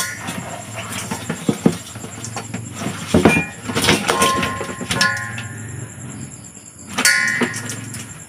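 Speared fish and a hard plastic container knocking and clattering into a stainless steel basin as the catch is shaken out. Several of the knocks leave the metal basin ringing briefly.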